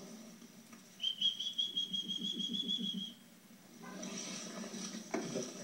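A high, rapidly warbling whistle held for about two seconds, followed by a stretch of rustling noise.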